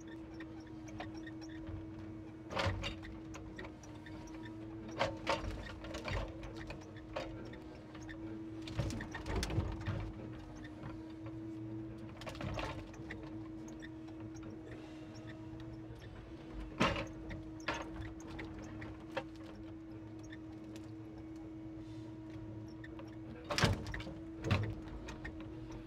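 Hydraulic loader crane on a timber truck working a grapple over a log load: a steady hydraulic hum, with knocks and clunks of logs being set down, several times.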